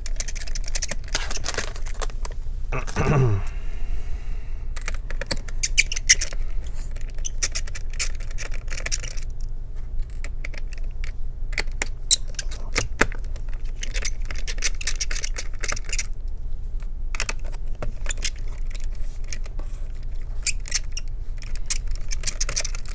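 Small screws being backed out of a laptop's chassis with a precision screwdriver: irregular light clicks and scrapes of the bit, screws and plastic, over a steady low hum. A short falling squeak about three seconds in.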